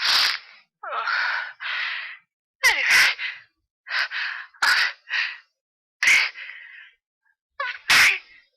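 A person sneezing over and over in an allergic fit brought on by a cat: about five sharp sneezes, each set off by quick gasping in-breaths.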